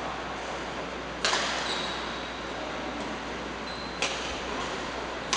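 Badminton rackets striking a shuttlecock during a rally: two sharp pops about three seconds apart, over the steady hiss of a large hall.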